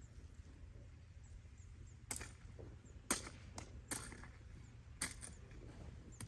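About half a dozen sharp, irregularly spaced chopping knocks from a hand tool striking wood or hard ground, beginning about two seconds in; the strike about three seconds in is the loudest.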